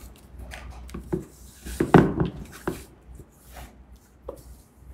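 Light knocks, taps and rustles of hands handling plastic items on a tabletop, the loudest knock about two seconds in.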